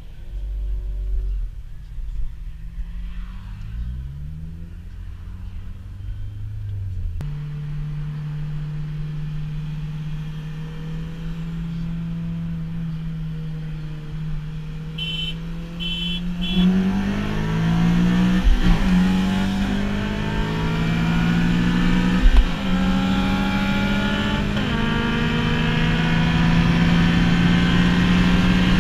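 A full bolt-on 2015 Honda Civic Si's 2.4-litre four-cylinder engine heard from inside the cabin. It revs, then holds a steady note. After a few short high beeps, the engine goes to full throttle for a race pull, the revs climbing and dropping back at each of three upshifts.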